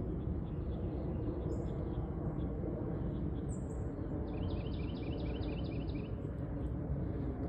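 Small birds calling over a steady low outdoor rumble. Short high chirps come now and then, and a quick trill of about ten repeated notes falls about halfway through.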